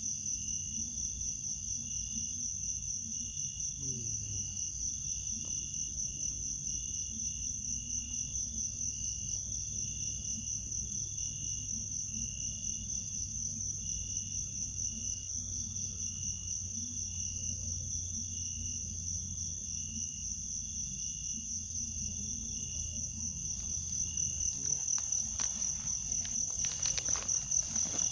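Steady chorus of crickets and other insects: a continuous high shrill trill over evenly pulsing chirps. A few faint clicks come in near the end.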